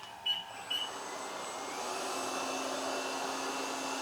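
Laresar robot vacuum starting an auto-clean run: two short high beeps, then its suction motor and brushes spin up over about a second and settle into a steady whir.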